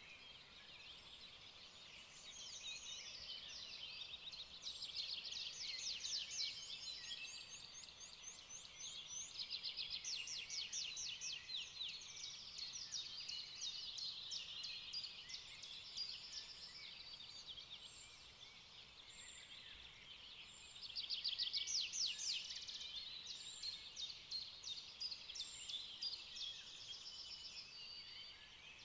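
Small birds singing and chirping, many rapid trills and short high calls overlapping, with a louder spell about two-thirds of the way through.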